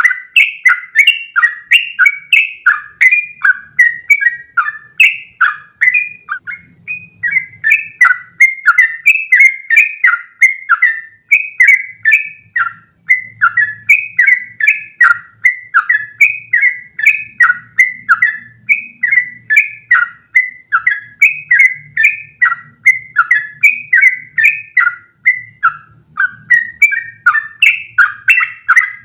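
Yellow-vented bulbul (trucukan) singing a long, unbroken run of rapid, bubbling notes, about two to three a second without a pause: the continuous 'ropel' song that keepers play to train their birds.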